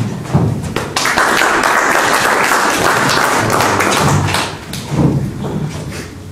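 Audience applauding for about three and a half seconds, with thumps and taps from steps and the piano bench on a wooden stage floor around it.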